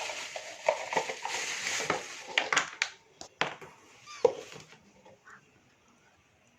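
Plastic parts of a steam vaporizer being handled: rustling and crackling with sharp plastic clicks over the first few seconds, then a few scattered light knocks.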